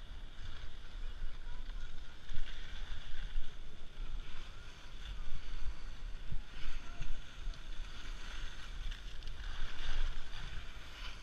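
Skis sliding and scraping over hard-packed snow, the hiss swelling and fading with the turns, under a low rumble of wind buffeting the camera's microphone.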